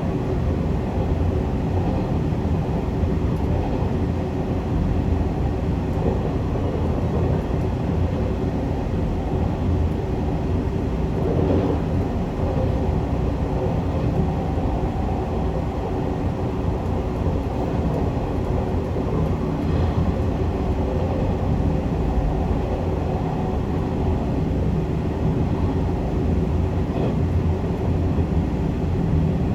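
Zipangu Hiraizumi express train running at speed, a steady rumble of wheels on rail with a faint constant hum. The sound swells briefly about eleven seconds in.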